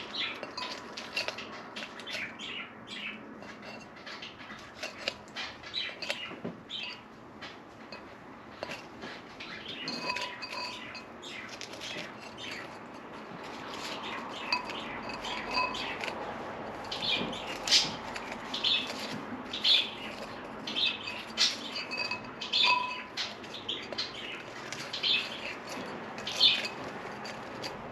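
Cockatiel rummaging in a vase: many short clicks and scrapes, busier in the second half, with a few brief chirps.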